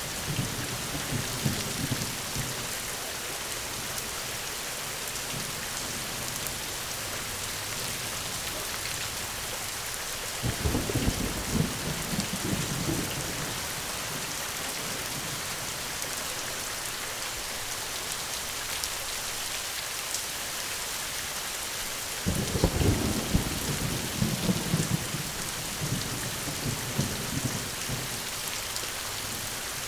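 Steady heavy rain with thunder rumbling: a rumble dies away at the start, then two more roll in, about ten seconds in and again after about twenty-two seconds.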